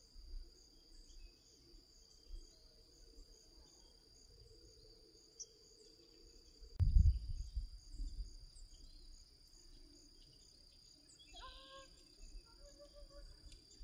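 Insects chirping in a steady chorus: a constant high-pitched drone with a pulsing chirp repeating over it. About seven seconds in, a loud low rumble comes in and fades, and a few short calls sound near the end.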